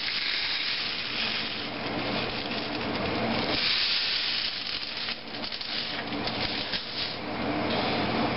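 A steady hiss with a faint low hum and scattered small ticks, swelling a little about four seconds in.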